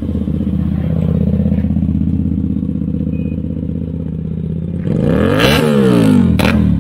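Hyosung GTR 250's 250 cc V-twin with an aftermarket Mark Performance titanium racing exhaust, running steadily, then revved sharply up and back down about five seconds in. A few sharp cracks follow near the end.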